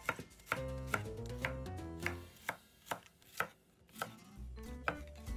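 Chef's knife slicing garlic cloves on a wooden cutting board: a crisp knock of the blade on the board about twice a second, about ten cuts in all.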